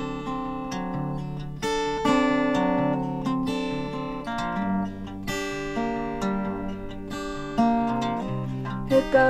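Acoustic guitar played solo: a chord is struck every second or so and left to ring.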